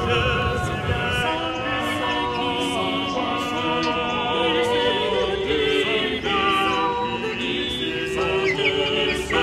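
Background music: an unaccompanied vocal ensemble singing an old French chanson in several parts.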